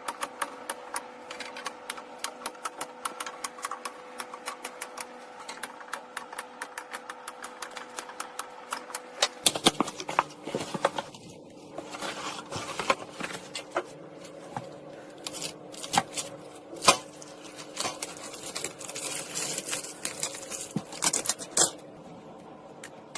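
Fast, evenly spaced clicking for about nine seconds, then irregular clicks, knocks and scraping of small hard parts being handled and fitted. A faint steady hum runs underneath.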